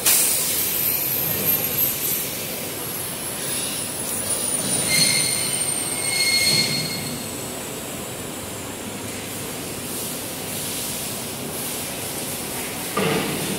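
Hand towel paper folding machinery running: a steady mechanical din with a thin high whine that slowly falls in pitch over the first half, and brief squealing tones around the middle.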